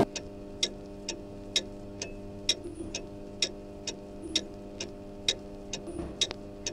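A clock ticking evenly, about two ticks a second, over a low steady hum.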